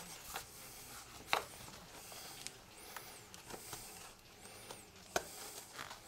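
Wet rag wiping and rubbing the inside of a carpet cleaner's clear plastic brush housing, faint, with two sharp clicks of the housing, one about a second in and one near the end.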